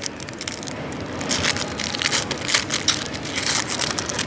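Foil-wrapped trading-card pack being torn open and crinkled by hand: a run of sharp, papery crinkles and rustles that grow busier about a second in.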